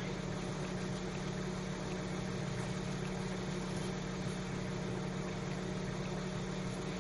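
An engine idling steadily, a continuous low hum with no change in speed.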